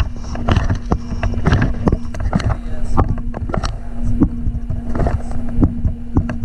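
Irregular knocks and rattles, several a second, over a steady low hum: a camera held on with double-sided tape being jolted about while the RC car is run.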